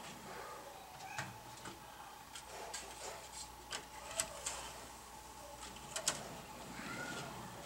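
Light, irregular plastic clicks and taps as a model passenger car is handled and set onto the rails, its wheels clicking into place on the track; the sharpest clicks come about four and six seconds in.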